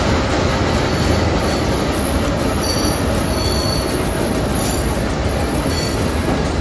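Nilgiri Mountain Railway toy train running through a stone tunnel: a loud, steady rumble of wheels on rails, echoing off the tunnel walls, with brief high wheel squeals several times in the second half.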